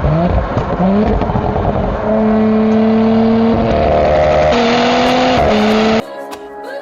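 Audi S4 engine pulling hard under load, its pitch climbing and dropping back in quick gear changes in the first second, then holding a steady drone with a brief step up and back down near the end. It cuts off suddenly and music starts.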